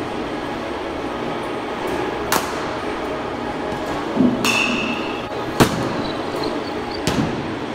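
Batting-cage impacts: four sharp cracks and knocks of baseballs off the bat and the cage, a second or two apart, the loudest a little past halfway and one followed by a short ringing tone, over a steady background rumble.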